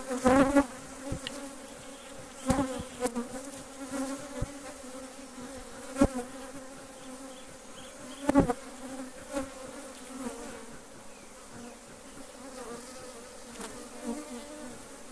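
A mass of honeybees buzzing steadily around an opened hive box. The bees are stirred up and pouring out of the box. A few sharp knocks sound over the buzz, the loudest about six seconds in.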